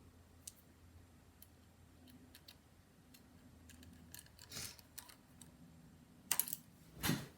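Light clicks and small metallic ticks from handling screws and hard drive mounting hardware during PC reassembly, with three louder knocks in the second half, over a faint low hum.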